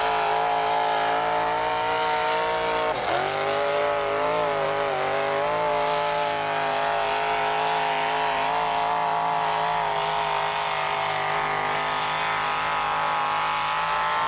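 Pulling tractor's engine running at full throttle as it drags a weight-transfer sled, holding high revs. About three seconds in the revs drop sharply and then climb back.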